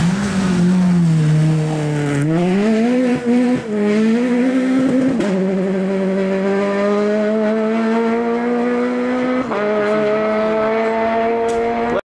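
Peugeot 208 rally car's engine pulling hard away on a gravel stage, pitch climbing from about two seconds in, with a couple of quick lifts, then stepping down at an upshift about five seconds in and again near nine and a half seconds, over a hiss of tyres on gravel. The sound cuts off abruptly near the end.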